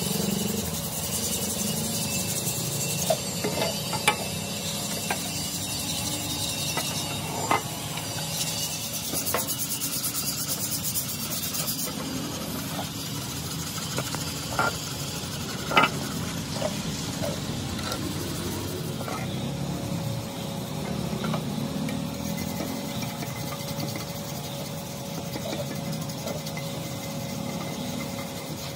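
Hand scraping and scrubbing of a rusted, wet Honda CG 125 motorcycle silencer and its heat shield: a steady rasping rub with a few sharp metallic clicks and knocks now and then.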